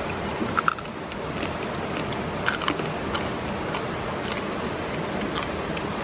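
Cooked mountain crab shell being cracked and chewed, a few sharp crunches, the loudest about half a second in and again about two and a half seconds in, over the steady rush of a mountain stream.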